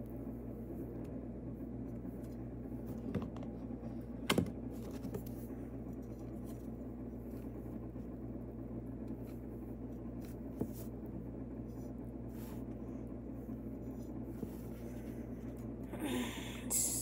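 A table knife scraping and spreading butter on bread, with a couple of sharp knocks about three and four seconds in and a louder scraping near the end, over a steady low hum.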